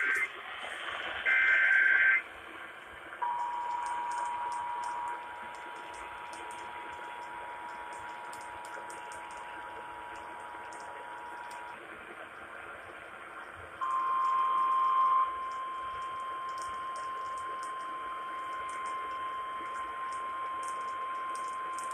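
Emergency Alert System tones: the last short, screeching burst of the digital header data, then the steady two-tone attention signal for about eight and a half seconds, then, after a short buzzy burst, a single steady alert tone for about six seconds. Together they herald a flash flood warning.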